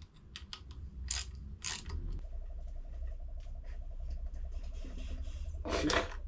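Socket ratchet on the crank pulley bolt of a Toyota 7K engine: a few separate clicks, then a fast, even run of ratchet clicks from about two seconds in as the handle is swung, with one louder metal clunk near the end.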